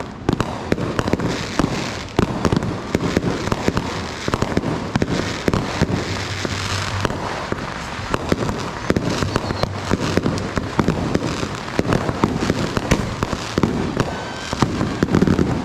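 Fireworks and firecrackers going off all around: a dense, unbroken crackle of rapid pops with louder bangs mixed in.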